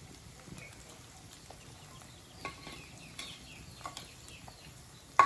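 Spatula and bowl working chopped onion into scrambled eggs in a frying pan: faint frying with scattered small clicks and taps, and a sharper tap near the end.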